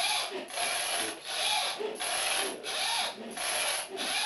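Pull-string winding mechanism of an M.I.A. M4 airsoft high-capacity magazine being pulled over and over, each pull a short rasping, ratcheting whirr, about three every two seconds.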